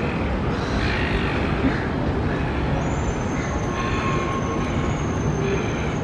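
Steady urban background rumble with a thin, high-pitched squeal that sets in about halfway through and holds.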